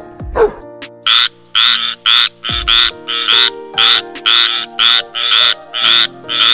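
A frog croaking over and over, about two to three loud calls a second, starting about a second in, over background music with held notes. A single dog bark comes just before the croaking starts.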